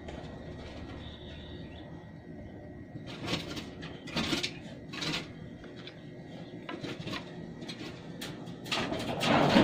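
Wooden craft sticks clicking and knocking lightly as glued stick panels are handled and set down on a table: a few sharp knocks a few seconds in, then a run of small clicks, with a louder noise starting near the end.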